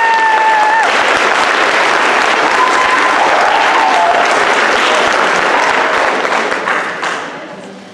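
Audience applauding in a hall, with a couple of long, high-pitched cheers in the first few seconds. The clapping dies away near the end.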